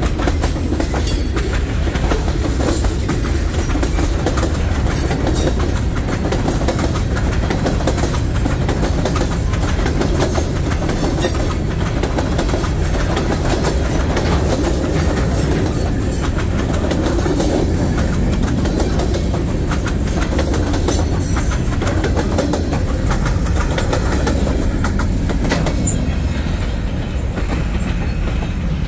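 Freight train's boxcars and covered hoppers rolling past close by: a steady rumble with wheels clicking over rail joints, easing near the end as the last car goes by.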